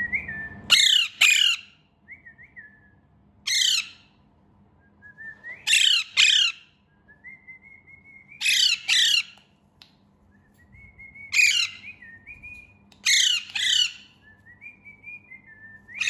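A pet green parakeet gives loud, harsh squawks, often two in quick succession, every two to three seconds. Between the squawks come softer, short whistled chirps.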